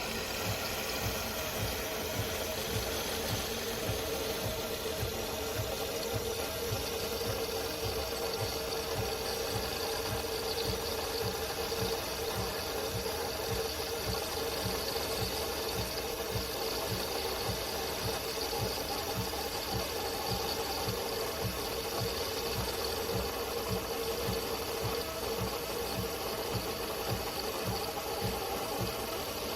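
De'Longhi Magnifica Start fully automatic espresso machine running steadily: a mechanical hum with a fast, even low pulsing that holds for the whole stretch.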